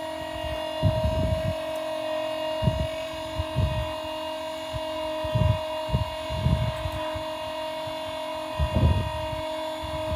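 Electric tongue jack on a travel trailer running steadily, its motor whining as it drives the jack up to raise the trailer tongue. A few short low rumbles come and go over it.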